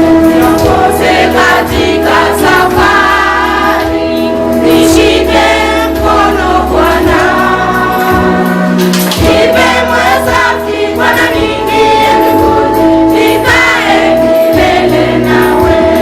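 Gospel choir singing with instrumental accompaniment, loud and continuous.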